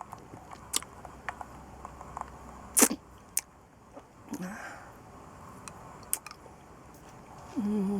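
Mouth sounds of someone eating a lollipop: scattered wet clicks and smacks of the hard candy against lips and teeth, the loudest about three seconds in. Near the end a voice starts humming.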